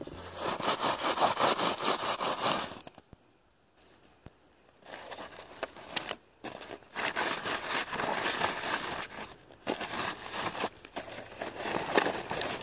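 A paper journal being rubbed and scraped against dirt and rock, a dense gritty scratching and crackling in bouts. It breaks off for about two seconds some three seconds in, with shorter breaks later.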